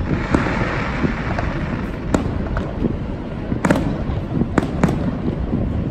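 Aerial firework shells bursting: four sharp bangs, one about two seconds in, another a second and a half later, then two in quick succession, over a steady low rumble.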